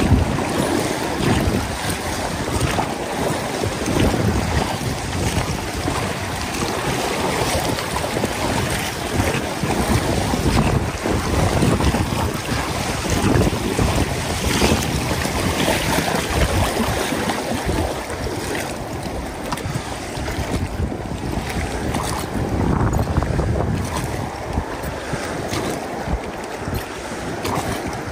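Wind buffeting the microphone in uneven gusts over the rush of river water around a floating boat.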